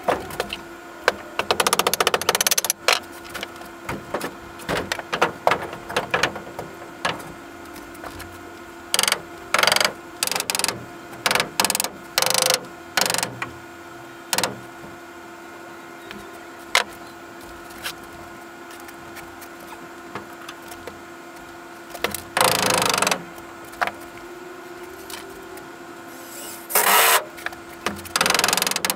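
Cordless power driver sinking screws into a wooden brace in a series of short runs, the longest about a second each, with knocks of the lumber between.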